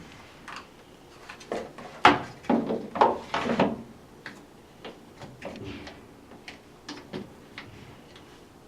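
Dryer's cool-air filter compartment being pushed back into its housing: a series of plastic knocks and scrapes, busiest around two to four seconds in, followed by a few light clicks.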